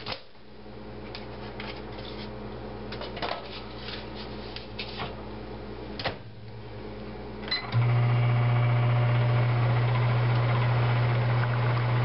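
A few handling clicks, then a short beep and a microwave oven starting up: a loud, steady hum as it runs, heating a frozen pre-cooked sausage patty.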